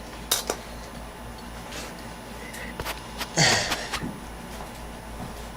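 Light clicks and knocks of hand tools being picked up and handled, likely the flare tool and copper pipe, with one louder brief rustle or scrape about three and a half seconds in.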